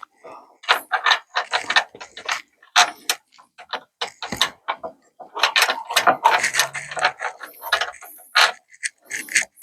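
Irregular metallic clicks, taps and rattles of hand tools and a bolt being worked into place on a car's radius rod bush plate, busiest in the second half.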